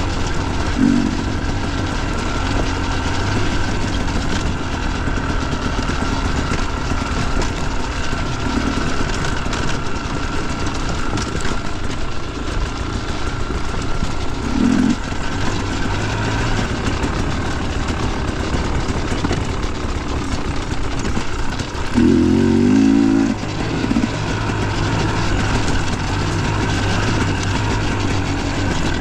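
Dirt bike engine running while riding, steady throughout, with a few brief louder surges; the longest and loudest comes a little over two-thirds of the way through.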